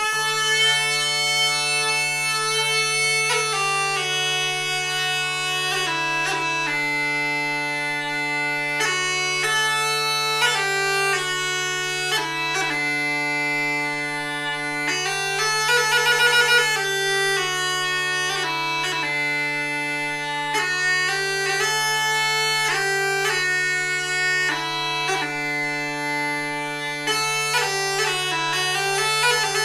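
Lithuanian bagpipe (dūdmaišis) playing a melody on the chanter over one steady drone, starting abruptly at the outset. About halfway through comes a rapid trill-like ornament.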